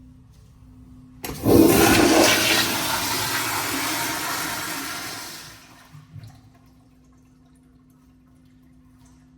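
American Standard Afwall wall-hung toilet flushing on its flushometer valve: a sudden loud rush of water about a second in that tapers off and stops around six seconds in. A steady low hum runs underneath.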